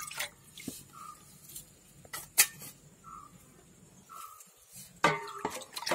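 Buttermilk finishes pouring into a steel bowl at the very start. After that, a few faint short chirps come about a second apart, with one sharp click about two and a half seconds in.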